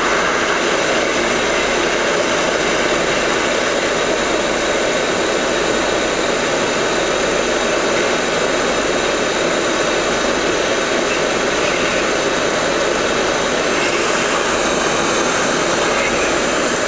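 Hot air rework station blowing a steady rush of hot air onto a laptop motherboard, reflowing the solder under a replacement MOSFET.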